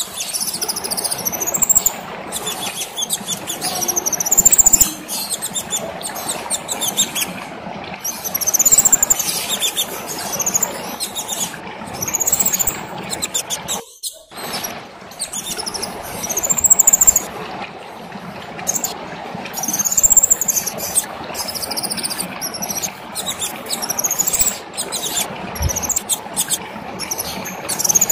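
A kemade bird singing in lively full song: high, arching phrases repeated every second or two over a steady lower background noise, with a brief break about halfway through.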